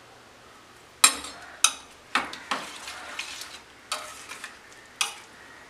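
A spoon stirring thick curd-and-ash-gourd pachadi in a stainless steel pot. Starting about a second in, it makes several sharp clinks and scrapes against the pot's side, with a wet stirring sound between them.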